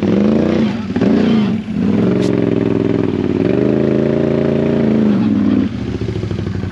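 ATV engine revving: two short throttle bursts, then held at high revs for about three and a half seconds before falling back toward idle near the end.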